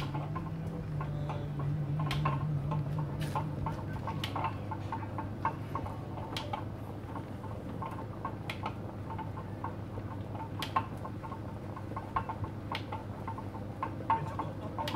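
Potter's wheel spinning with a steady low hum, with light, irregular clicks and ticks over it while a small clay cup is thrown.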